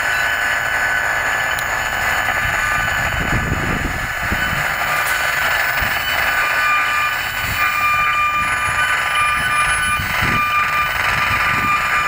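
Handheld electrosmog RF meter's speaker sounding a steady loud hiss with thin, steady whining tones over it. It is the meter's audio rendering of microwave signals, here constant and strong from the nearby cell antenna.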